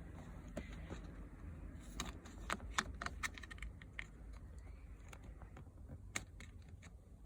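Small, sharp plastic clicks and taps from handling the parts of a seat belt buckle as its micro switch is fitted back in, bunched about two to three and a half seconds in, with one more about six seconds in.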